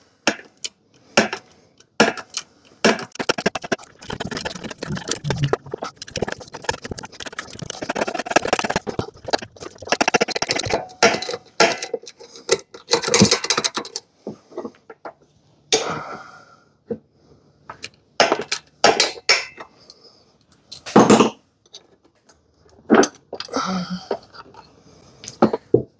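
Socket ratchet clicking and steel tools clinking against the engine's crankcase as the connecting rod cap bolts of a seized Briggs & Stratton Intek engine are worked loose. Rapid clicking fills the first half, then scattered sharp clinks follow.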